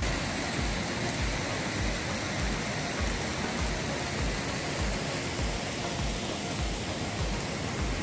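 Steady rushing noise of wind and a flowing mountain stream, with irregular low rumbles of wind buffeting the microphone.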